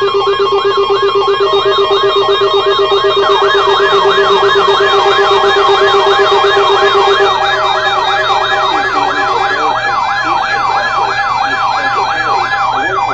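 Emergency alert tones played over radio: a siren-like tone warbling rapidly up and down about three times a second, over steady alert tones. The lowest steady tone drops out about seven seconds in, while the warble carries on.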